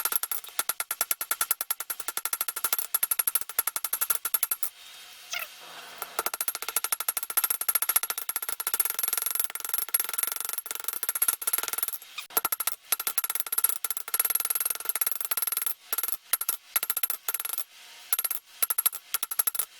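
Rapid, steady hammer blows of a 3-pound round hammer on hot steel over an anvil, drawing out a taper on a knife blank, with the anvil ringing on every strike. The hammering breaks off for about a second and a half about five seconds in, and stops briefly a few times near the end.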